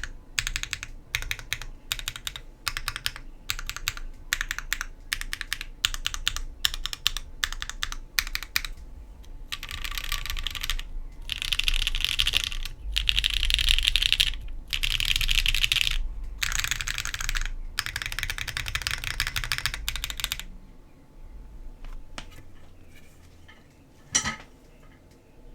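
Typing on an Argalia custom mechanical keyboard with HMX Jammy switches, a top-mounted aluminum plate, no dampening, and GMK keycaps. Separate short keystrokes at first, then from about 10 s in, fast runs of typing lasting a second or two each. The typing stops around 20 s in, and one more single click follows near the end.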